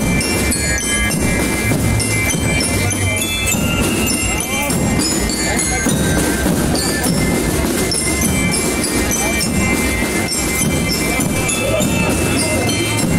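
Christmas music with jingle bells, many short high bell tones sounding throughout over a steady backing.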